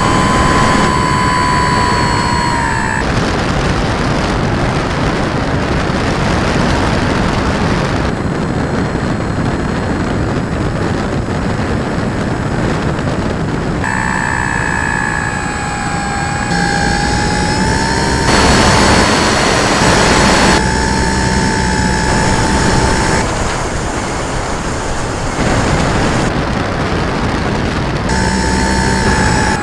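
Electric RC model plane's motor and propeller whining over heavy wind rush on the onboard camera. The whine wavers in pitch with throttle and drops out abruptly several times, leaving only the rush of wind.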